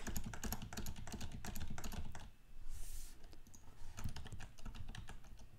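Computer keyboard typing: a run of quick keystrokes, with a brief pause a little past two seconds in.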